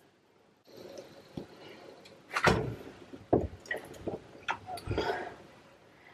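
Soapy water splashing and sloshing in a stainless steel kitchen sink as a cat is lowered into it and handled. It starts about a second in, with several sharp splashes, the loudest about two and a half seconds in.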